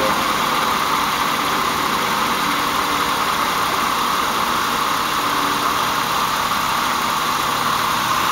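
Car engine idling steadily with the headlights and heater or AC switched on, putting an electrical load on the alternator, which is still charging.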